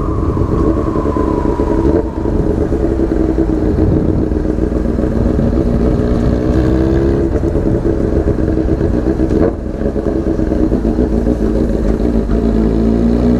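Honda Hornet CB600F's inline-four engine with a megaphone exhaust, running under way at steady throttle. It dips briefly about two seconds in and again near ten seconds, and the revs rise near the end.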